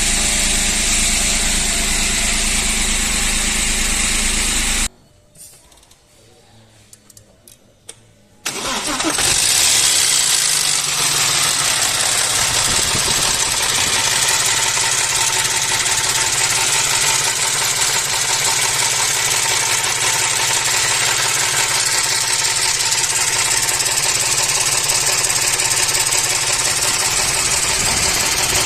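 Audi A4 V6 engine idling, cutting out abruptly about five seconds in; after about three seconds of quiet with a few faint clicks it comes back in suddenly and settles to a steady idle. The engine has a flickering low-oil-pressure warning, which the mechanic suspects could come from the oil pump.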